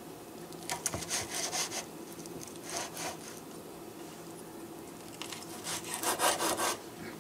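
Chef's knife sawing through a crispy woven-bacon pizza crust down onto a wooden cutting board: rasping, crunching strokes in runs about a second in, briefly around three seconds, and loudest near the end.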